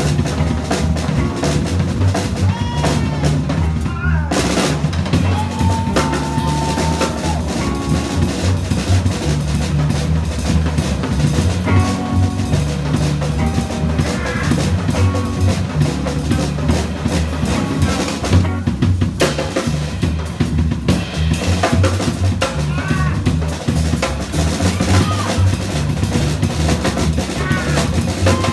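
Live jazz combo playing: drum kit driven hard with sticks, with snare, bass drum and cymbals to the fore, over a plucked upright bass line and hollow-body electric guitar.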